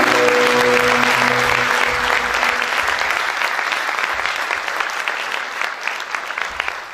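Audience applauding loudly at the close of a song, with the ensemble's last held note fading out beneath it in the first couple of seconds. The applause thins toward the end into separate claps.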